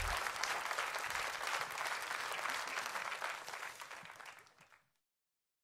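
Live concert audience applauding after the song's final chord, the clapping fading out near the end.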